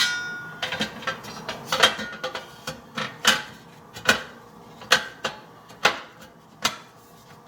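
Plastic parts of a Maytag dishwasher's filter assembly knocking and clicking as they are fitted and snapped into place: a sharp click with a short ring at the start, then a string of separate clicks and taps every half second to a second.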